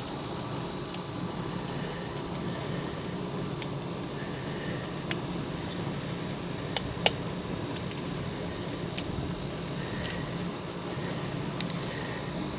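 Scattered light metallic clicks and taps from small screws and wires being handled at a pool pump motor's wiring compartment, the sharpest about seven seconds in, over a steady low hum.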